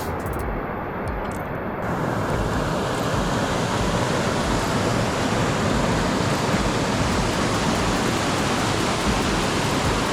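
Waterfall rushing: a steady, even noise of falling water that swells about two seconds in and then holds.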